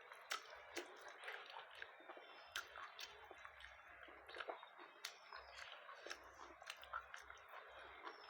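Faint close-up eating sounds: quiet chewing with many small scattered mouth clicks and smacks.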